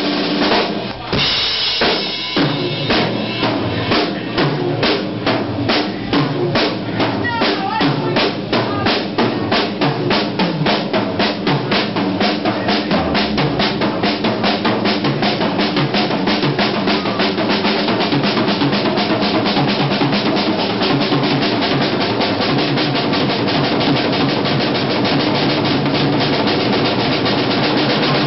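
Rock drum kit played solo: evenly spaced drum strokes that speed up steadily and merge into a fast continuous roll by about the middle.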